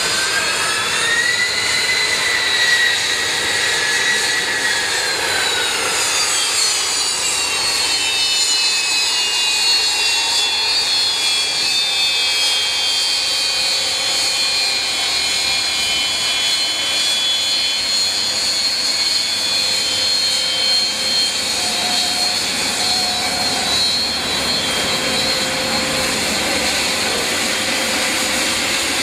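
Seaplane's turbine engine running with a high whine. The pitch rises over the first couple of seconds, glides down over the next several, then holds steady.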